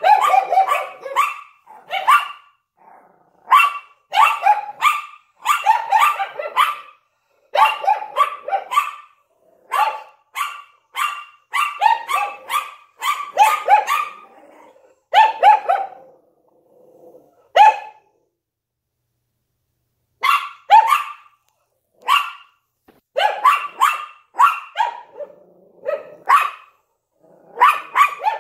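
Small dogs, a Yorkshire Terrier and a Lhasa Apso, barking repeatedly in quick clusters of short, sharp barks, with a break of a couple of seconds about two-thirds of the way in.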